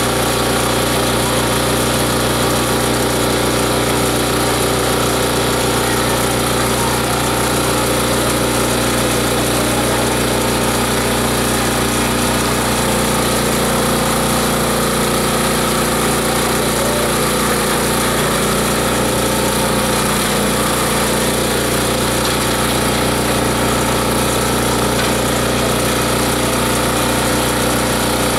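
Multi-blade chopper-shredder grinding machine running steadily, a constant mechanical hum made of several steady tones that never pauses.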